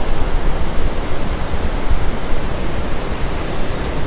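Ocean surf breaking along the beach: a steady rush of wave noise with a low, uneven rumble underneath.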